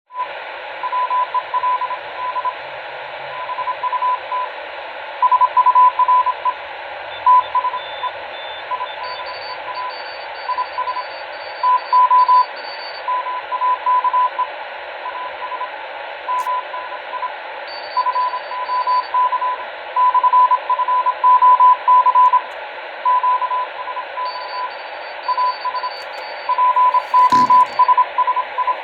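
Morse code (CW) heard on a radio receiver: a single pitched tone keyed on and off in dots and dashes over steady receiver hiss. Fainter, higher-pitched stations key in the background at times. A brief click comes near the end.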